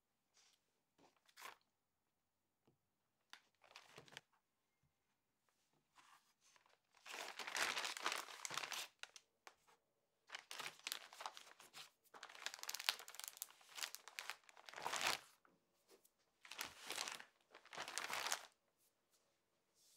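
Clear plastic zip-lock freezer bags crinkling in a series of bursts as chocolate cookies are packed into them and the bags are handled. First come a few light taps and knocks of cookies being picked up from a wooden board.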